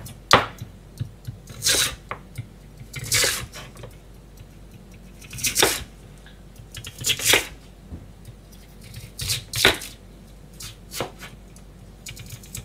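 Kitchen knife slicing through a raw, peeled lotus root and striking a plastic cutting board: about seven crisp cuts, one every second or two at an uneven pace.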